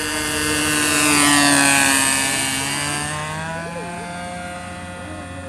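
Engine of a radio-controlled model airplane on a low fly-by. The buzzing swells to its loudest about a second and a half in, then drops in pitch and fades as the plane passes and climbs away.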